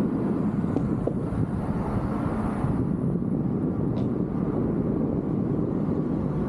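Steady rush of wind on the camera microphone and tyre noise from a mountain bike on the move, with a few light clicks from the bike and trail.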